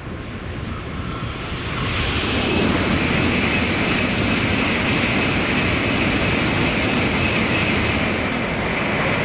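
Shinkansen train moving along the track past the platform: a steady rushing noise that swells about two seconds in and holds.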